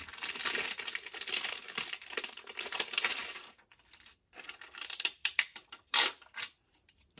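A clear plastic bag of stickers crinkling as it is handled, steadily for about three and a half seconds, then a few scattered crinkles and clicks, with one sharp click about six seconds in as the pack is set down on the mat.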